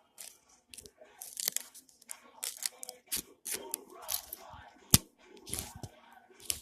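Freshly sharpened scissors cutting through material in a run of irregular snips, with a few sharp clicks of the blades, the loudest about five seconds in.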